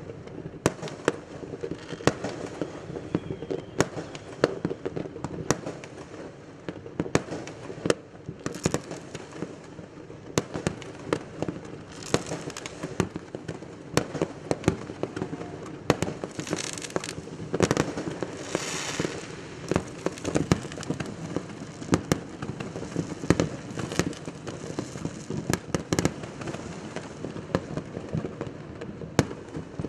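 Many fireworks going off at once: a dense run of sharp bangs over a continuous rumble of more distant explosions, with bursts of hissing crackle about a third of the way in and again past the middle.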